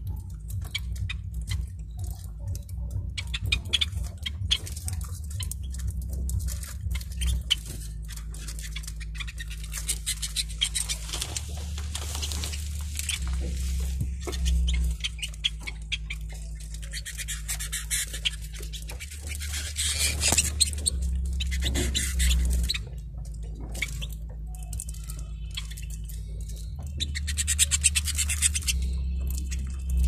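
Caged canaries and finches cracking and husking seed at a feeder tray: a steady run of small, rapid clicks. A few times there are bursts of high twittering.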